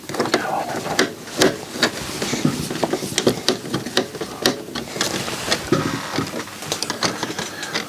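Screwdriver working a small screw into the metal chassis of a CD player, with many irregular light clicks, scrapes and handling knocks.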